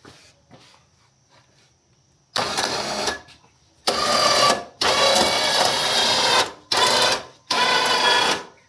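ATV electric winch running in five short bursts with a steady motor whine, reeling in cable to lift the mulcher attachment on the plow mount.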